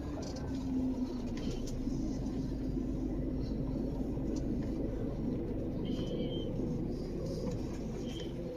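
Diesel truck engine running steadily with a low rumble, with two short high tones in the second half.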